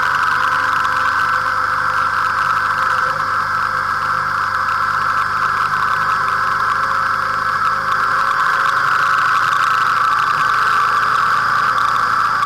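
A motorcycle's engine running at a steady cruise while riding, with road and wind noise, picked up by the bike-mounted dashcam's own microphone. The drone stays even throughout, with only a slight shift in the low engine note about eight seconds in.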